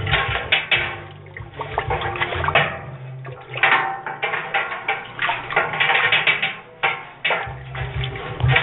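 Scrub brush swishing and scraping around the inside of a Speidel Braumeister's stainless steel kettle, sloshing the cleaning solution, in uneven strokes with small knocks against the metal.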